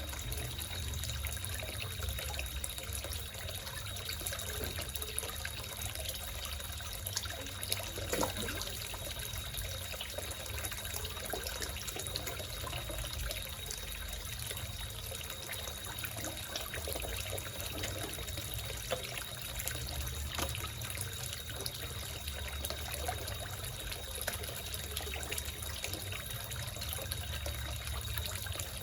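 Water steadily trickling and splashing into a small koi pond, with a thin, steady high-pitched tone running under it.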